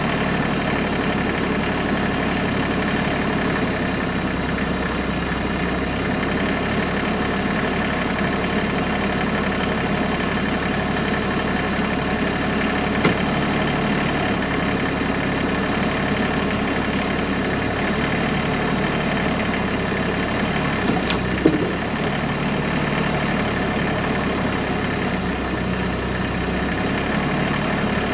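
Tractor engine running steadily at a constant speed, with a brief sharp click about halfway through and two short knocks about three-quarters of the way through.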